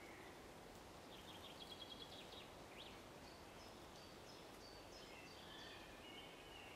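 Near silence with faint birdsong from small songbirds: a quick run of high repeated notes about a second in, then more short high phrases and a warble through the second half, over a faint steady hiss.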